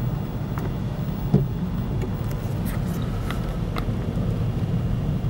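Steady low rumble inside a car's cabin as it rolls slowly in strong storm wind, with a few faint ticks and one brief knock about a second and a half in.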